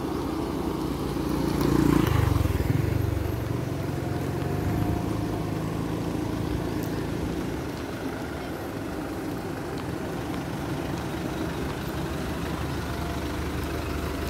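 Hyundai minibus's diesel engine running as it pulls up, loudest about two seconds in, then a steady low hum at idle.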